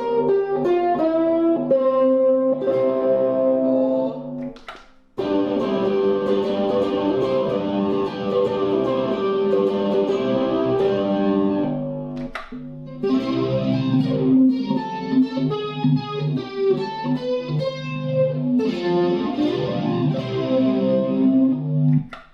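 Electric ukulele played through a Digitech multi-effects pedal into an amp. It starts with picked notes, then after a brief break, about five seconds in, comes a fuller sustained effected sound. After a second short break, about halfway through, a third passage of effected playing follows.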